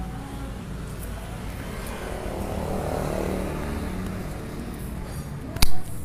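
Steady low background rumble and hiss that swells slightly around the middle, with one sharp knock near the end.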